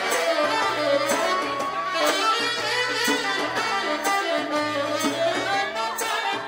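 Live band music with a saxophone playing gliding melodic lines over a bass line and a steady drum beat of about two hits a second.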